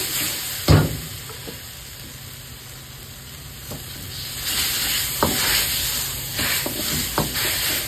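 Steel ladle stirring and scraping masala in a hot black iron wok, the sizzle of frying under it, with a sharp clank of ladle on wok about a second in and two lighter knocks later. The sizzle swells to a loud hiss about halfway through as liquid in the sauce hits the hot wok.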